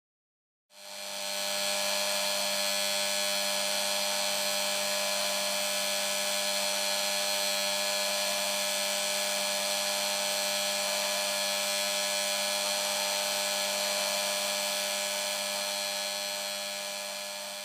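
Steady electric buzz of the vibrator mechanism in a Lionel operating station accessory, driving the small figures around the platform. It switches on about a second in and fades near the end.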